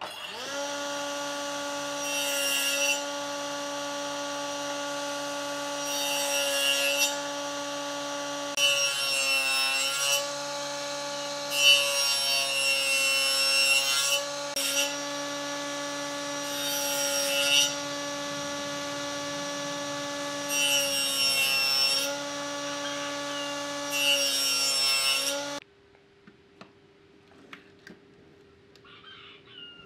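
Table saw motor running with a steady hum while a thick wooden block is fed through the blade in about seven separate cuts, each a second or two long, with the motor's note sagging slightly under each cut. The sound cuts off abruptly near the end, leaving near silence.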